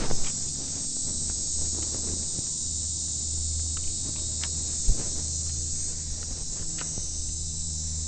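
Hand work on an outboard engine's fuel system as an injector is pulled from the engine: a few faint clicks and one knock about five seconds in, over a steady high hiss and low hum.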